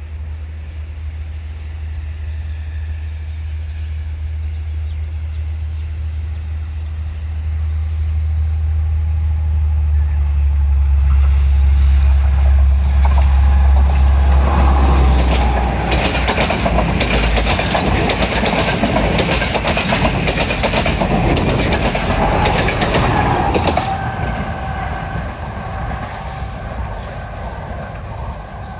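A Sri Lanka Railways Class S8 diesel multiple unit, driven by an MTU V12 diesel engine with hydraulic transmission, approaches with a deep engine drone that grows louder. It then passes close by with its wheels clattering over the rail joints for about ten seconds, and the sound fades as it pulls away.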